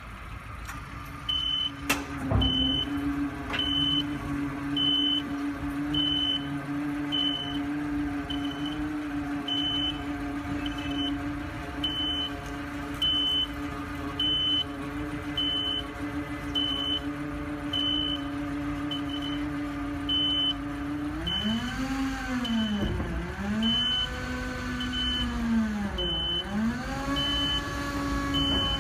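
A 2-ton hook-lift garbage truck's engine and hydraulic hook-arm system run steadily under load with a humming drone while the arm unloads the bin. A high warning beeper sounds about once a second throughout. Near the end the hum sags in pitch and recovers three times as the hydraulics labour.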